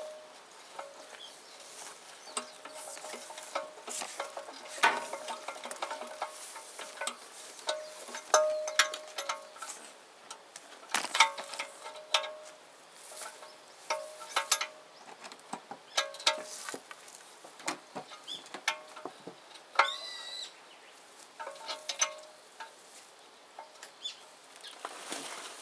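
Irregular metallic clinks and knocks of steel parts being handled and struck, several ringing briefly after each hit, with a short squeak about twenty seconds in.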